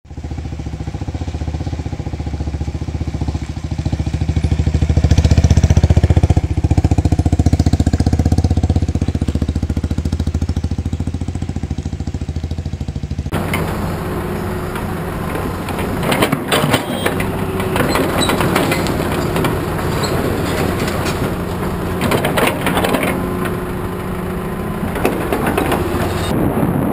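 A motorcycle engine running as the bike rides down a gravel road, getting louder about five seconds in. About thirteen seconds in it changes abruptly to a noisier mix of engine sound and crunching, clattering gravel beside a tracked excavator at work.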